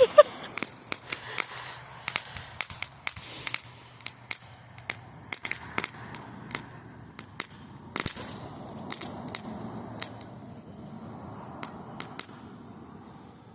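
Small consumer fireworks going off: sharp, irregular pops and crackles scattered throughout, a few each second, with a faint hiss underneath. One louder crack comes about eight seconds in.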